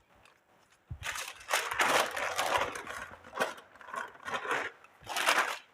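Paper crinkling and rustling as brioche dough is rolled up in it: a long rustle, then several shorter ones.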